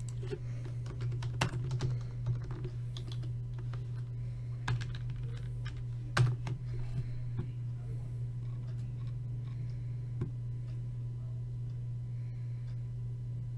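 Typing on a computer keyboard in irregular bursts of key clicks, busiest in the first half and loudest about six seconds in, over a steady low hum.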